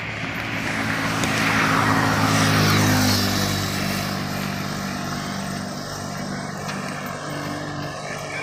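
A motor vehicle driving past on the road. Its engine hum grows louder, goes by about three seconds in with a drop in pitch, then slowly fades.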